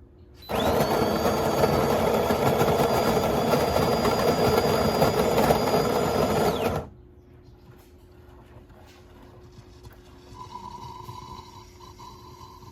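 De'Longhi Magnifica Start espresso machine's pump buzzing loudly for about six seconds with a steady high whine, then cutting off abruptly: the hot-water rinse through the espresso spouts that the machine runs when switched off.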